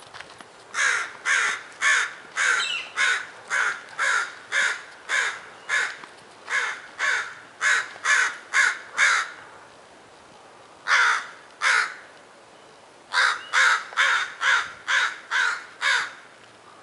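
A corvid giving harsh, repeated alarm calls, about two a second, in a long run, then two calls after a pause, then another run. The walker takes the calling as the birds sounding the alarm at Mose, a bird-killing pet on the trail.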